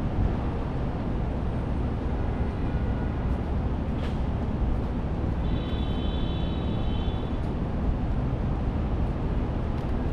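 Car driving through city streets: a steady low rumble of road and engine noise. About four seconds in there is a sharp tick, and shortly after a brief high-pitched squeal lasting about two seconds.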